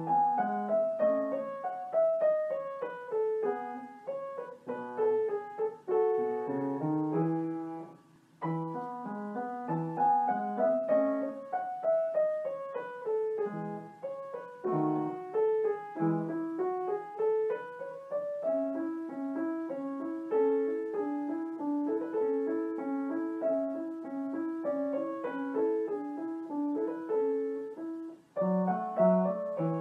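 Solo piano background music playing flowing runs of notes that step down and up, with a brief break about eight seconds in.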